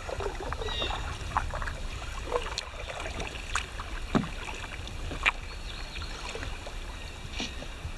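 Canoe paddle dipping and pulling through the water, with irregular small splashes, drips and light knocks, over a steady low rumble.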